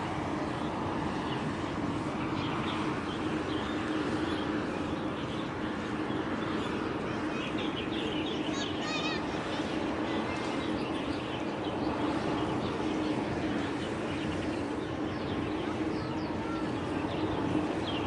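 Steady waterside drone and hiss with a constant low hum, over which small birds chirp now and then, with a quick trill about eight and a half seconds in and more calls near the end.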